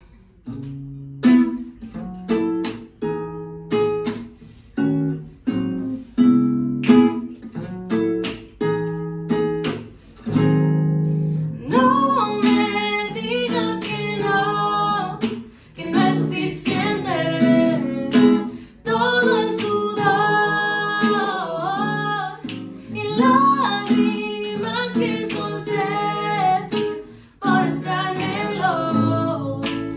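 Acoustic guitar playing a plucked and strummed intro alone, then a woman and a man start singing together over it about twelve seconds in.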